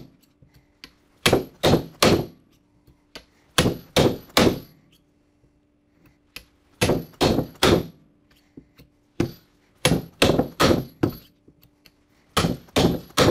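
Small sledgehammer striking a steel three-prong rivet driver, hammering Flexco BR rivets through a conveyor belt splice. Sharp metallic clangs with a high ring, in quick sets of about three blows, repeated about five times.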